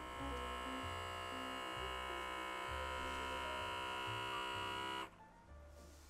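Background music with a stepping bass line, overlaid by a steady electric buzz that cuts off suddenly about five seconds in.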